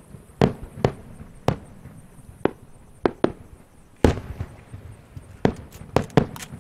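Aerial fireworks shells bursting overhead: about a dozen sharp bangs at uneven intervals, the loudest about four seconds in, with a quick cluster of bangs in the last second and a half.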